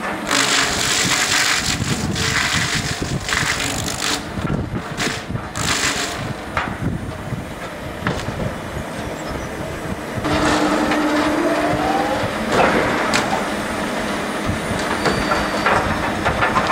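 Butt end reducer's cutting shaft milling the flared butt end of a log, in noisy bursts of chipping and grinding over steadily running machinery. About ten seconds in, a humming tone and a rising whine join in for a couple of seconds.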